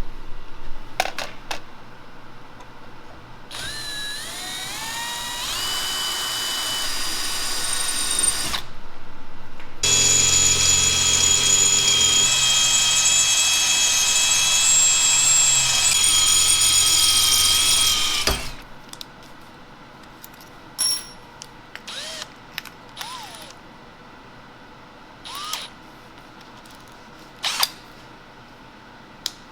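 Electric drill boring the bolt holes for mounting the sign on its post. The first run climbs in pitch as the motor spins up. After a short pause comes a louder, steady run of about eight seconds that cuts off suddenly, followed by scattered light clicks and knocks.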